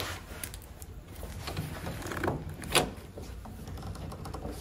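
DeWalt trigger bar clamps being squeezed and set against wooden boards: a few separate clicks and knocks, the loudest about three seconds in.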